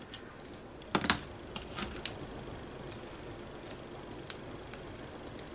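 Small, sharp clicks and ticks of beads, wire and beading tools being handled. A cluster of louder clicks comes about a second in, then lighter scattered ticks.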